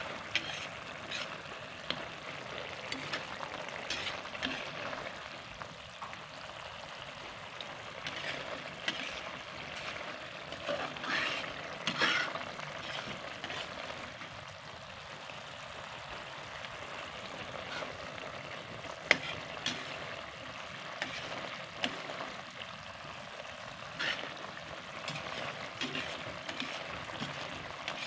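Sambal bawang chili paste sizzling and bubbling in a frying pan as a spatula stirs it, with scattered sharp clicks of the spatula against the pan.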